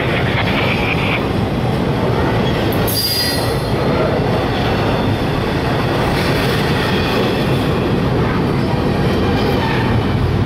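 Double-stack intermodal freight train rolling past close by: a steady rumble and clatter of steel wheels on rail, with short high wheel squeals near the start and about three seconds in.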